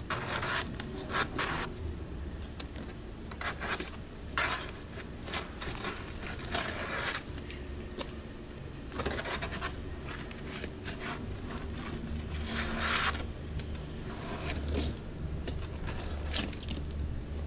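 Trowel scraping and spreading roofing cement over a roof underlayment patch, in irregular strokes of varying length.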